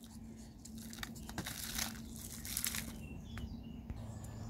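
Faint rustling and crinkling of potting soil poured from a plastic cup into the cells of a plastic seed-starting tray, in short irregular bursts.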